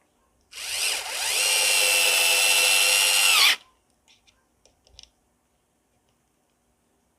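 Worx WX240 4V mini cordless screwdriver at maximum speed driving a screw into wood: the motor whines up to speed, runs for about three seconds, and sags in pitch under load just before it stops. A few faint clicks follow.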